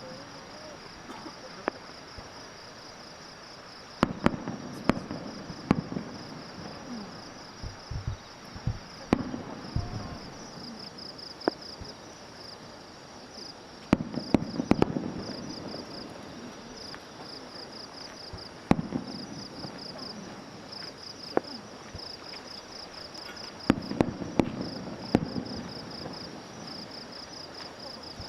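Aerial fireworks bursting: sharp bangs and crackling reports in clusters every few seconds. Under them, insects chirp in a steady fast-pulsing high trill.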